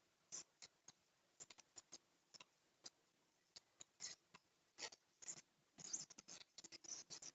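A spoon stirring borax solution in a container: faint, irregular clicks and scrapes of the spoon against the sides, coming faster near the end.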